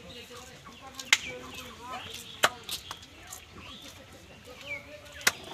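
A few sharp, unevenly spaced chopping knocks of a blade cutting chicken meat, with live chickens clucking in the background.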